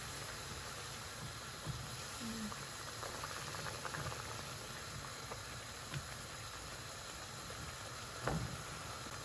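Hot water simmering in a frying pan of sliced courgettes and onions, a steady hiss, with a few light taps and scrapes of a plastic slotted spatula stirring it.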